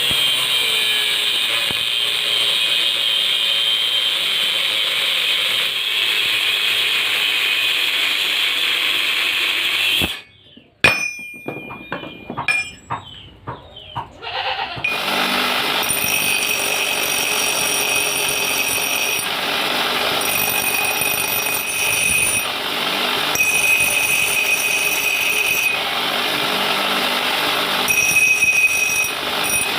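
Metalworking machinery running steadily. About ten seconds in it stops, a few sharp knocks follow, and then it runs again with a high whine that comes and goes every few seconds.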